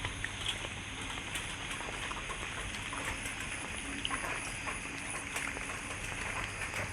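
Steady high-pitched chorus of crickets over a patter of rain and dripping water, with scattered sharp drip ticks.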